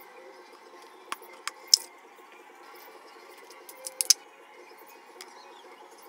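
Small plastic paint pots and a marker being handled: three sharp clicks a little after one second in and a quick cluster of clicks and knocks around four seconds in, over a steady low hum.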